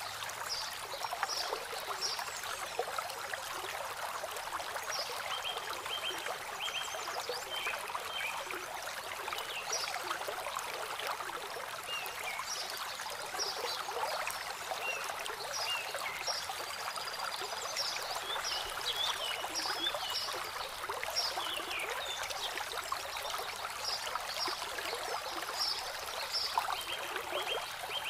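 Water trickling and splashing over pebbles and a flat stone spillway in a small landscape stream, a steady babble. Short high chirps come and go over it.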